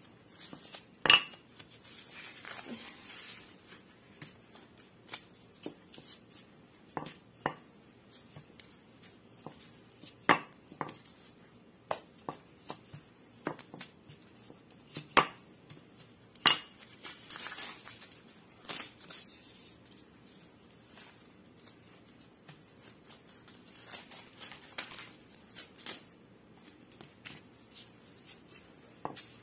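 Wooden rolling pin working bread dough on a silicone mat: scattered sharp knocks as the pin is set down or bumps the table, a dozen or so irregularly spaced, with soft rustling in between.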